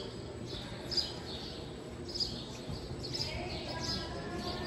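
Small birds chirping: repeated short, high chirps over a steady low background rumble.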